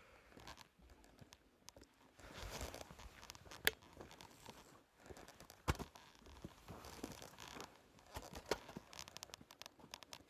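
Rustling and scratching handling noises with a few sharp clicks and knocks, the loudest a little under 4 seconds in and just before 6 seconds.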